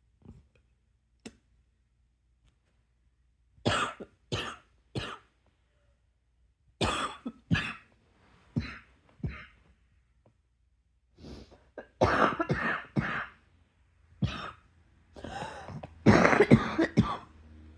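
A person in a coughing attack: repeated hard coughs in fits of three or four with short quiet gaps between them, the fits getting louder and longer near the end.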